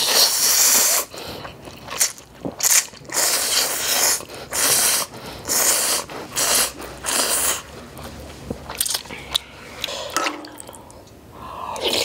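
A person slurping spicy instant ramyeon noodles in a run of loud, noisy slurps over the first seven seconds or so, with quieter mouth sounds in the gaps and after.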